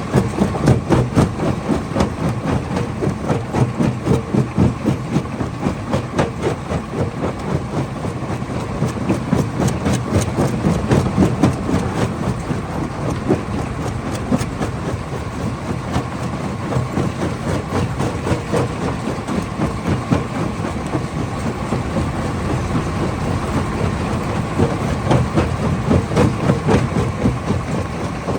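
Hammer crusher running and breaking stone: a steady heavy rumble with rapid, irregular knocks and clatter from rock being struck, and a faint steady tone over it.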